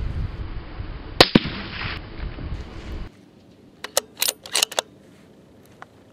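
Remington 700 bolt-action rifle in .308 Winchester: a single sharp shot about a second in over a steady rumble that cuts off abruptly. About four seconds in comes a quick run of metallic clicks as the bolt is worked back and forward.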